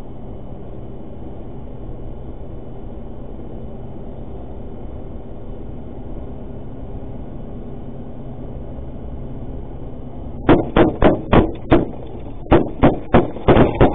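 Steady road and engine noise inside a cash-in-transit van's cab, then about ten seconds in a burst of rapid gunshots fired at the van, about five in just over a second, and after a short pause another fast run of shots.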